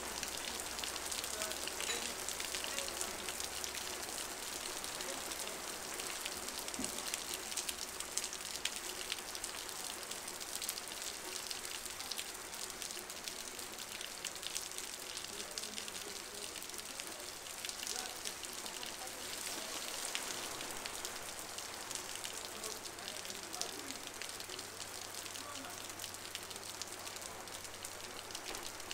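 Heavy rain pouring onto a street, a dense steady hiss full of fine drop patter.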